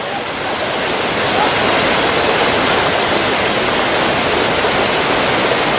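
A small waterfall on a mountain brook: a steady, loud rush of water over rock, swelling over the first second or so and then holding even.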